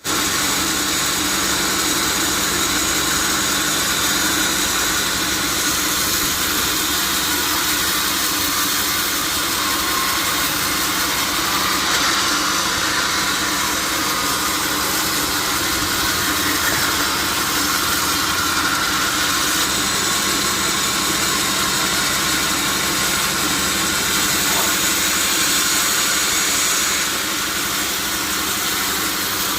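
Sawmill machinery running with a steady, unchanging drone.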